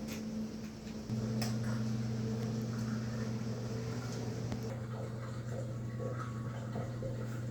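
A steady low hum, joined about a second in by a louder, deeper hum that holds to the end, with a few faint clicks.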